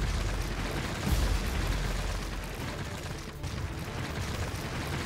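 Deep booming rumble, like a dramatic explosion sound effect. A fresh boom comes about a second in, then a rolling roar that slowly fades.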